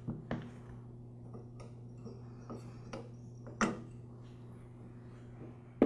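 A few light clicks and taps of metal parts as the valve plate assembly is lifted off the cylinder of an oilless air compressor pump, the loudest about three and a half seconds in, over a steady low hum.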